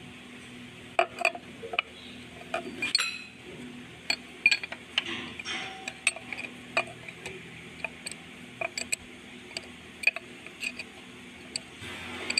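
A steel combination wrench clicking and clinking against a nut and the metal of a Perkins four-cylinder diesel's injection pump as the nut is worked: a string of irregular, sharp metallic clinks.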